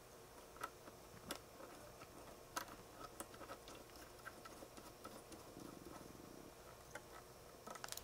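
Near silence broken by scattered faint, short clicks and taps of small metal RF connectors and cables being handled and fitted.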